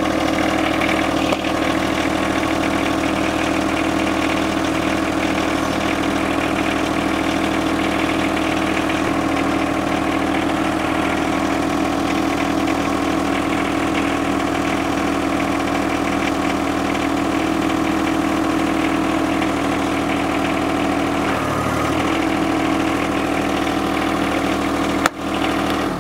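John Deere 1-series subcompact tractor's three-cylinder diesel engine running steadily at idle, with a brief shift in its note about 21 seconds in.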